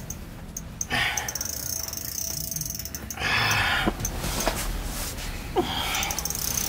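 Spinning reel on an ice-fishing rod clicking and whirring in several short spells, with fast, even ratcheting clicks, while a big lake trout is fought on the line.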